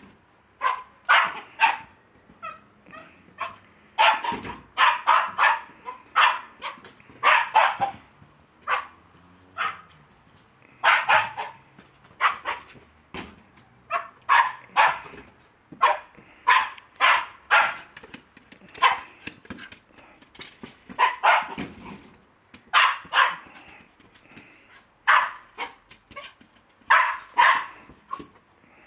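Lakeland terrier barking over and over, in quick runs of short barks with brief pauses between runs.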